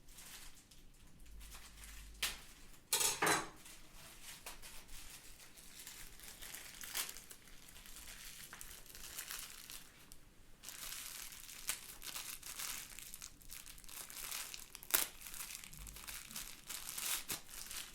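Packaging crinkling and rustling as it is cut and torn open by hand to get at a cable, with a louder burst about three seconds in and a sharp click near the end.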